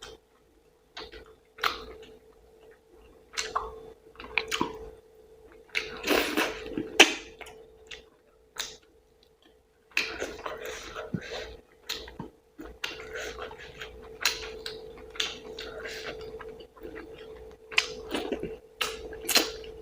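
Close-miked eating of curry and rice: wet chewing and lip smacks in short, irregular bursts, with a faint steady hum underneath.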